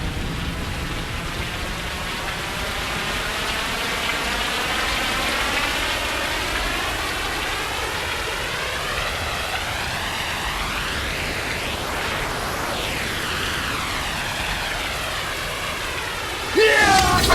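Steady hiss of heavy rain, with a slow sweeping whoosh running through it. A sudden loud crash breaks in just before the end.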